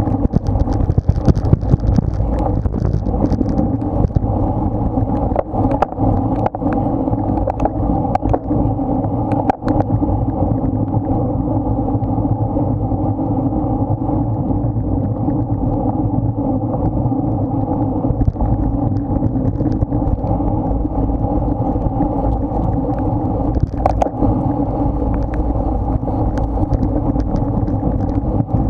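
Steady wind and road rush on a bicycle-mounted action camera's microphone while riding at race speed, with scattered short knocks from the bike over the road.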